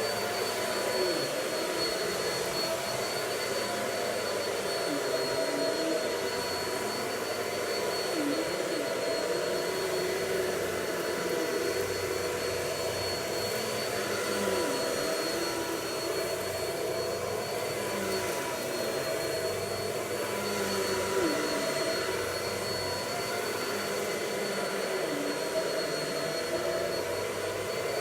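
Vacuum cleaner running steadily, a motor hum with a high whine over it; the lower tone dips briefly every few seconds.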